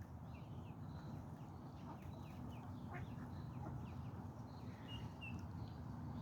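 Many quick, high chirps of small birds, or of ducklings peeping, over a low steady background rumble.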